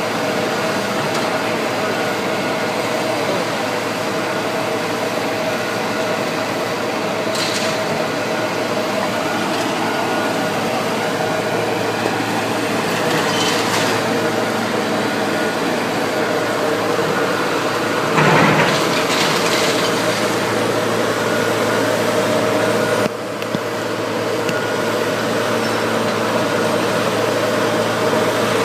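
A heavy demolition machine's engine running steadily, with a few short sudden noises and a louder crash about 18 seconds in as the bell tower is pulled down.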